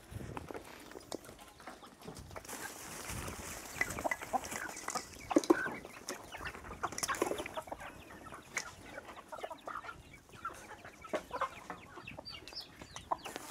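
Domestic chickens clucking in many short, scattered calls as they crowd in to be fed bread.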